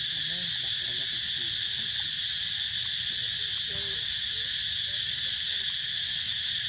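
Steady high-pitched drone of an insect chorus, unchanging throughout, with a few faint short calls that bend up and down in pitch.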